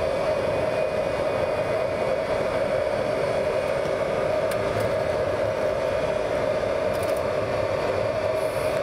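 Boeing 707's Pratt & Whitney JT3D-7D turbofan engines running at low power on the ground, heard from inside the cockpit as a steady, even drone with a strong mid-pitched hum.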